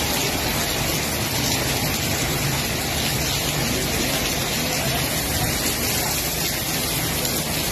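Heavy rain pouring down, a steady dense hiss of water.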